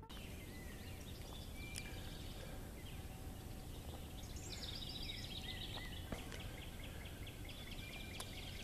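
Faint birds calling: short whistled notes and a rapid trill near the middle, over a steady low outdoor background rumble.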